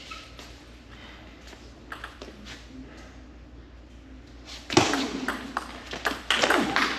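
Table tennis ball clicking: a few light taps early on, then from about five seconds in a fast rally of sharp hits off the rackets and table, with voices calling out over the end of the point.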